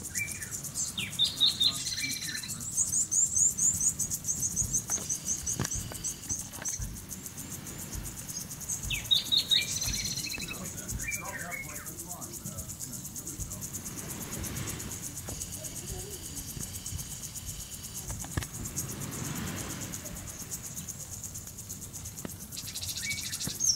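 Small songbirds calling: high, thin notes and quick twittering runs, mostly in the first half, over a steady high hiss. Later a soft rushing from the garden sprinkler's spray swells and fades twice.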